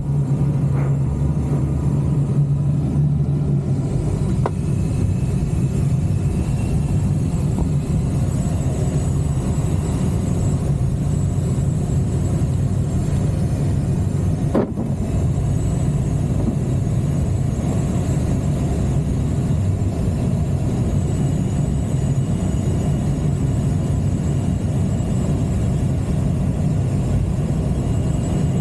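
Steady rumble of airflow around an ASK 21 two-seat glider's cockpit in flight, with a faint steady high tone above it. Two brief clicks come about four and fifteen seconds in.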